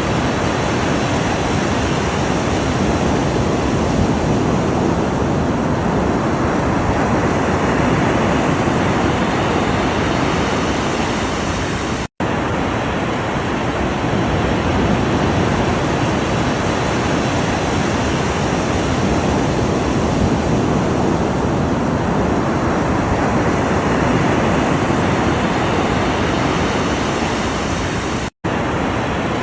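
Ocean surf washing continuously, swelling and easing slowly. It cuts out for a split second twice, about twelve seconds in and near the end.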